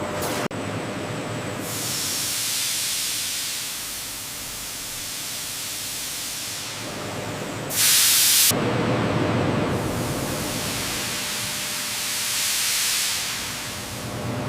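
Steady machine hiss that swells and fades, with a sudden loud blast of hiss lasting under a second about eight seconds in.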